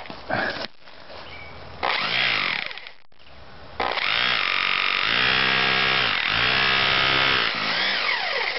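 Bosch hammer drill on hammer-only setting, its worn masonry bit driven into a wooden block on wet concrete, hammering to vibrate the air bubbles out of the concrete. It runs briefly about two seconds in, then runs steadily from about four seconds in, the motor speed dipping and rising a few times.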